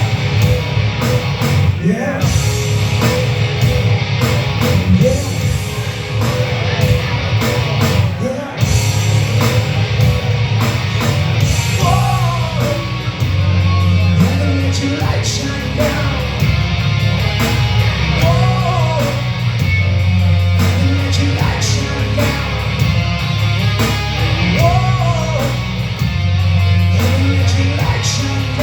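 Live rock music played loud by a band, with electric guitar over a heavy, steady bass and a recurring rising-and-falling melodic phrase.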